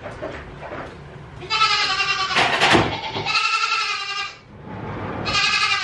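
Goat bleating: three drawn-out bleats, each lasting about a second.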